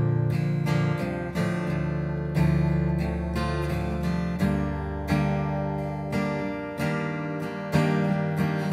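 Martin acoustic guitar in DGCFAD tuning, strummed lightly with a pick through a progression of C over G, E minor with an added high G, A minor, then F major 7 with its suspension. The strums come every half second to a second, and each chord is left to ring.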